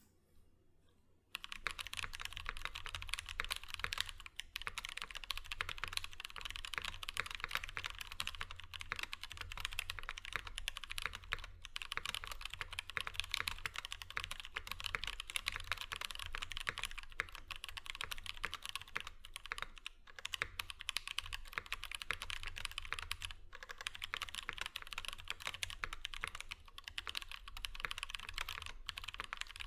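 PH60 mechanical keyboard with lubed Durock T1 tactile switches, TX switch films and a POM plate, typed on quickly and continuously: a dense stream of key clacks with a soft low thock under each press. The typing starts about a second in and pauses briefly a few times.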